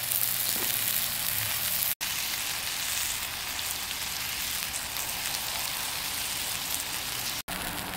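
Ground beef patties sizzling steadily on a hot griddle, a continuous frying hiss, cut off for an instant twice.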